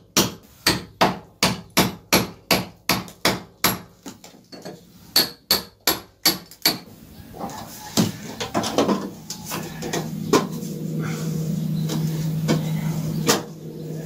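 Hand hammer blows, about three a second, chipping at a concrete-block wall, with a short pause about four seconds in. The blows stop about seven seconds in, and a steady low hum with a few light knocks follows.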